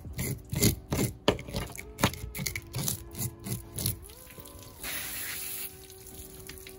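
Scaling tool scraping the scales off a mangrove snapper in quick repeated strokes, about three a second, for the first four seconds. A short hiss follows about five seconds in.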